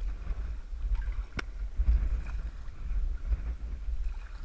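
Wind buffeting a GoPro Hero's microphone, a low gusting rumble, with one sharp click about a second and a half in.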